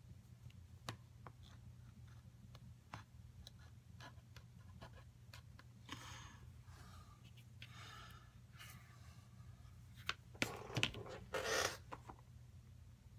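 Craft knife cutting thin leather against a cutting mat: faint scattered clicks, then a few soft scraping strokes about midway, with louder knocks and a rustle of handling near the end, over a low steady hum.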